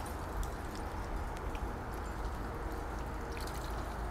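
Sebastopol geese bathing in a tub of water, with light splashing and dripping as scattered small splashes over a steady low rumble.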